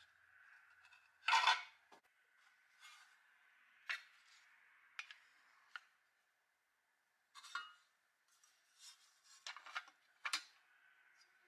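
Plastic and pressed-steel parts of a Tonka toy truck being handled and fitted together: scattered sharp clicks and light taps, the loudest about a second in, with a moment of dead silence past the middle.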